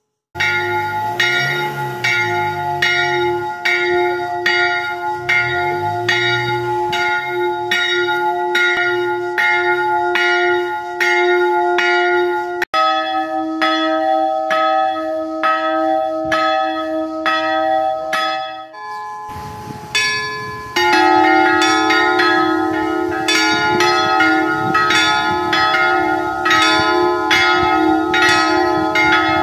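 Church bells ringing in quick, regular strokes, about two a second, with each stroke's tone hanging on into the next. The ringing breaks off abruptly twice and picks up again with a different mix of bell tones, fuller and denser near the end.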